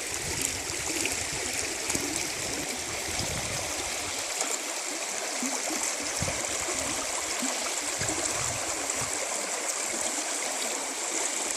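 Creek water running over rocks: a steady, even bubbling rush of flowing water.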